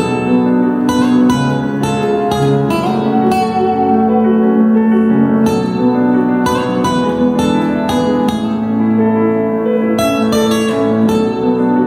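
Music played on plucked string instruments: quick runs of plucked notes over held lower notes.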